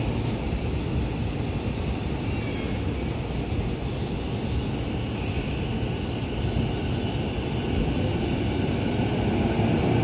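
JR East E233-1000 series electric train pulling out of a station with a steady rolling rumble. Near the end the traction motors start a whine that rises in pitch and grows louder as the train picks up speed.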